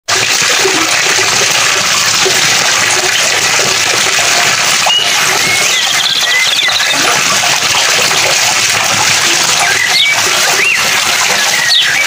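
Steady rushing of running water. Short bird chirps and calls sound over it about five seconds in and again near the end.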